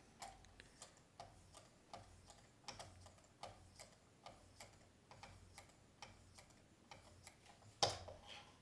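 Quick, faint ticking, two or three ticks a second, as the Work Sharp Precision Adjust's guide-rod abrasive holder with 9-micron lapping film is stroked back and forth across a steel knife blade, with one louder click near the end.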